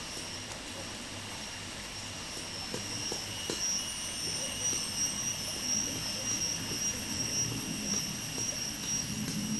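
Steady forest ambience: a droning insect chorus holding a few high pitches, with a few light knocks and creaks from a wooden pole ladder being climbed about three seconds in. A low rumble swells near the end.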